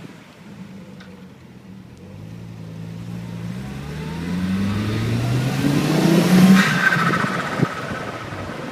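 Volvo S70 T5's turbocharged inline-five pulling hard, its note rising steadily in pitch, then turbo flutter from the stock TD04HL turbo as the throttle snaps shut under boost, a rapid chattering burst about two-thirds of the way in.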